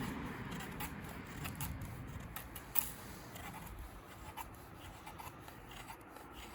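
Sharp knife blade slicing thin feather curls off a wooden stick: a series of short, light scraping cuts, irregularly spaced, about one every half second to second.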